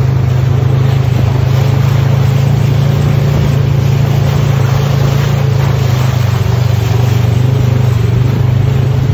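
Polaris RZR side-by-side's engine running steadily, heard from on board: a loud, constant low drone that holds the same pitch throughout.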